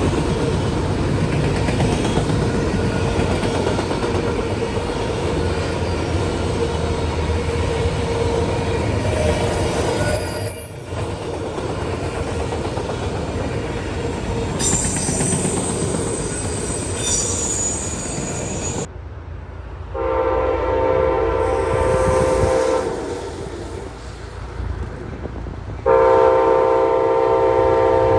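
A train rolling past with steady wheel rumble and rattle over the rails, and high-pitched wheel squeal twice along the way. Then a locomotive's multi-note horn sounds twice: a shorter blast, then a louder, held one near the end.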